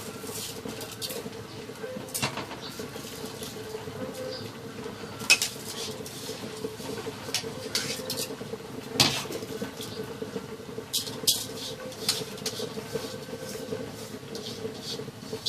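Metal spoon and cookware clinking and knocking at irregular intervals as washed rice is tipped from a bowl into a pot of heating water, over a steady hum.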